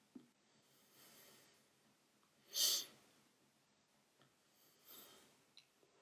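A person breathing near the microphone: soft breaths, with one short, sharp exhale or sniff through the nose a little under three seconds in.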